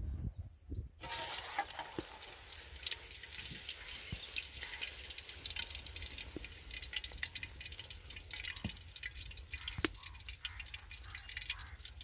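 Chicken leg pieces deep-frying in hot oil in a large aluminium pot: a dense crackling sizzle, starting about a second in, with a few sharper clicks.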